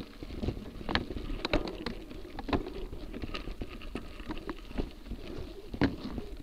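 Gravel bike riding over rough gravel and grassy ground: a steady tyre rumble with irregular sharp knocks and rattles as the bike jolts over bumps.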